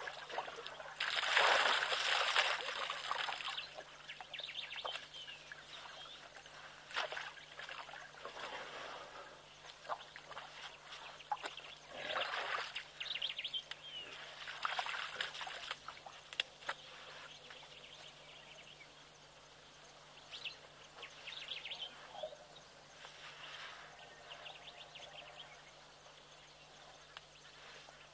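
Water and mud splashing and sloshing in a shallow muddy pool as an African elephant and its calf move and pour water about in it. It comes in irregular bursts, the loudest about a second in.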